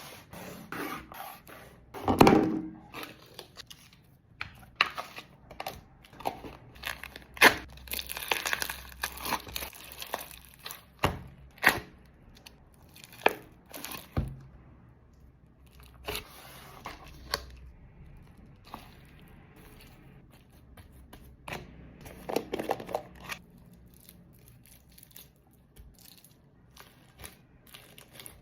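Slime being handled by hand, squished, stretched and pressed, with irregular sticky pops, clicks and crackles.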